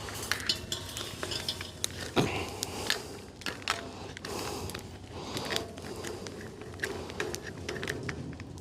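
A metal pan clattering and clinking, with many quick irregular taps and rattles.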